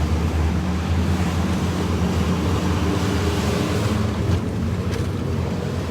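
Tow truck's engine running with a steady low hum under wind and road noise.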